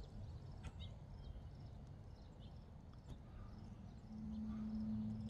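Faint, scattered high peeping of goslings over a steady low background rumble. Near the end a steady low hum swells for about a second and is the loudest sound.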